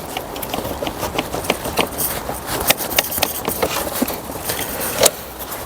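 Irregular clicks, taps and light knocks of a coil pack being worked loose by hand from a V12 engine's cylinder head, with a sharper knock about five seconds in.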